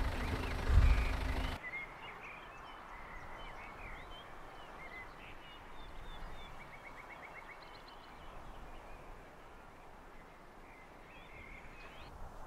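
Quiet open-air background with small birds chirping now and then and one short rapid trill a little past the middle. It opens with about a second and a half of louder sound, including a low thud, that cuts off suddenly.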